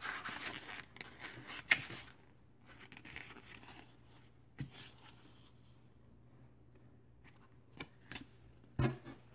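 Pages of a small paperback picture book being flipped and rustled, busiest in the first two seconds, then a few light paper ticks and a soft bump near the end as the book is handled and turned over.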